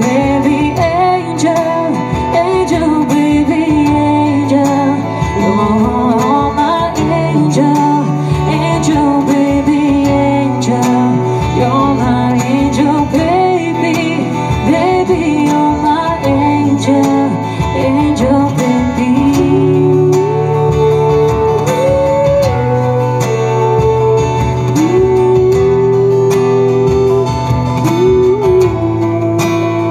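A woman singing a slow song into a microphone, accompanied by an acoustic guitar, heard live through the stage PA.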